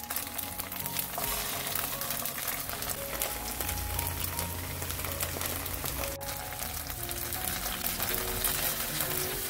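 Starch-coated tofu cubes frying in shallow cooking oil in a nonstick pan, a steady crackling sizzle, with soft background music under it.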